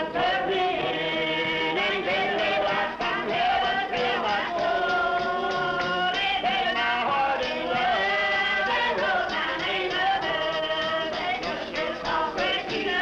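Men and women singing a gospel hymn together, holding long notes, over strummed acoustic guitars, heard through an old film soundtrack.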